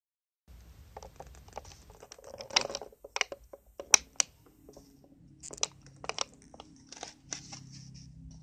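Plastic crinkling and irregular clicks as a finger presses and taps a toy mobile phone still sealed in its plastic blister pack. The loudest clicks come about two and a half to four seconds in.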